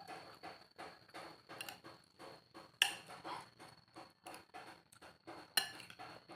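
Close-up eating sounds of a person eating noodle soup: soft, regular chewing about three times a second, with cutlery clinking sharply against the bowl twice, about three seconds apart.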